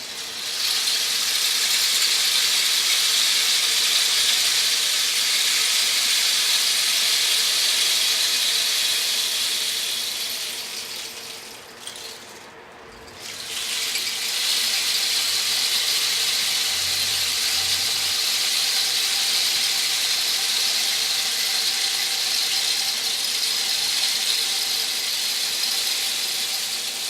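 Rain stick being tipped: its beads or pebbles pour down through the tube with a steady rain-like hiss. The flow dies away about twelve seconds in, then starts again after the stick is turned over and runs on steadily.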